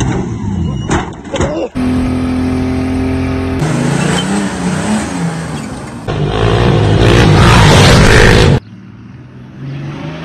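A string of short clips of car engines revving hard, pitch rising and falling, joined by abrupt cuts; the loudest stretch comes just before a sudden drop about two seconds from the end.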